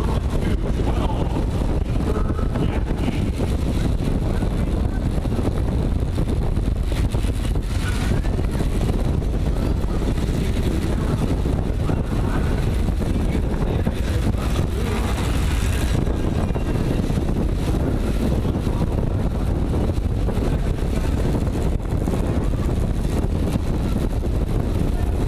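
Steady wind rushing over a bike-mounted action camera's microphone, mixed with the rumble of a track bike's tyres rolling fast on wooden velodrome boards.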